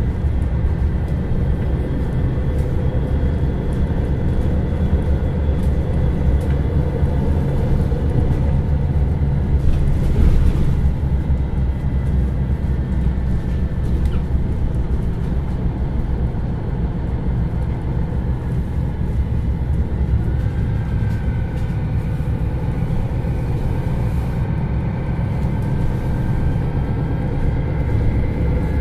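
MAN Lions City NL323 city bus's diesel engine and drivetrain running while the bus is under way, a steady low rumble. In the second half a faint whine rises in pitch as the bus picks up speed.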